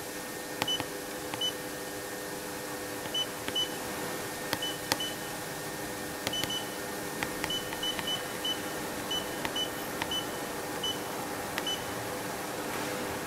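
Touchscreen control panel of a Fuluke FPM inkjet printer giving a short high beep at each button press, about twenty beeps at irregular intervals as the date digits are stepped. A few sharp clicks and a steady low hum run underneath.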